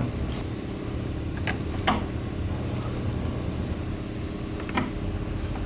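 A few sharp plastic-and-metal clicks as a screwdriver and the lock's plastic cover are handled on a door lock: two close together about one and a half to two seconds in, one more near the end. They sit over a steady low hum.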